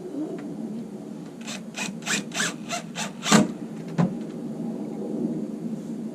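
Hand work on shelf parts: six quick scraping strokes at about three a second, then two sharper knocks about half a second apart.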